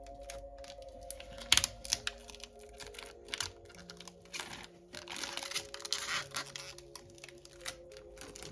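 Close-up clicks, taps and crinkling from PC hardware being handled, with a sharp click about a second and a half in and a stretch of crinkling about halfway through. Soft background music with long held notes runs underneath.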